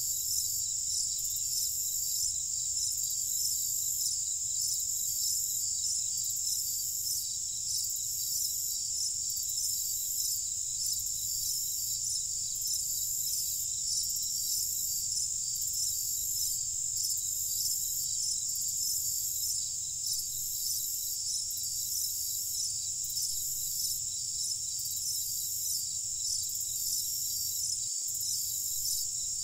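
A chorus of crickets at night: a dense, steady, high-pitched trill with a fainter, higher chirp pulsing regularly above it, over a low steady rumble.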